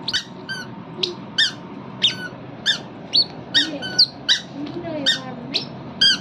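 A toddler's squeaky shoes chirping with each step as she walks, a short high squeak about two or three times a second.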